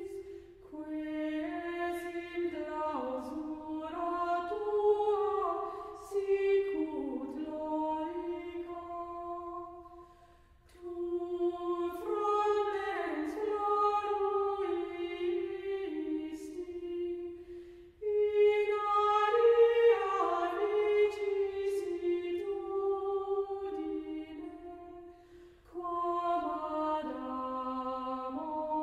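Background music of a choir singing without accompaniment, in long held phrases with short breaks between them.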